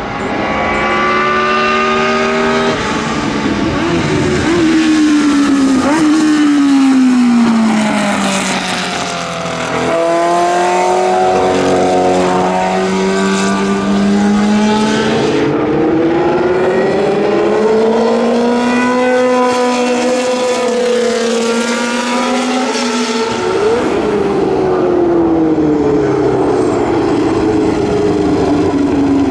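Historic Formula 1 racing car engines at high revs, passing one after another. The pitch climbs through the gears and drops as they brake or go by, with a sharp pop about three-quarters of the way in.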